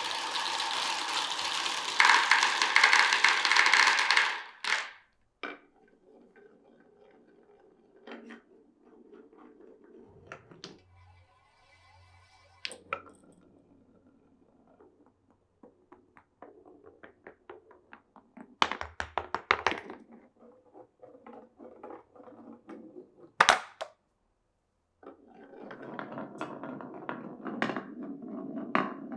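Glass marbles rolling and clattering down a wooden marble run. A dense, continuous rattle at the start and again near the end, with scattered clicks, knocks and short clatters in between as marbles drop and strike the pieces.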